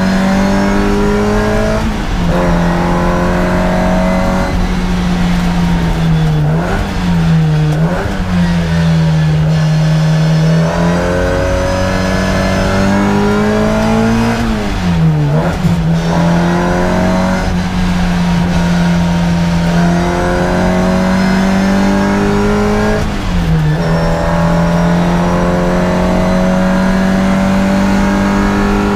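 Racing car engine heard from inside the cockpit while lapping a circuit, held at a nearly steady high pitch for long stretches. Its pitch dips briefly and climbs back several times as the driver lifts off or changes gear, most deeply about fifteen seconds in.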